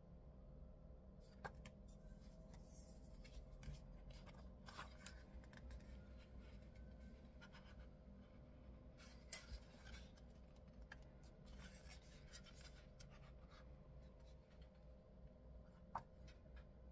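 Faint paper rustling and a few light taps and clicks as sticker-book pages are handled and leafed through, over a faint steady hum.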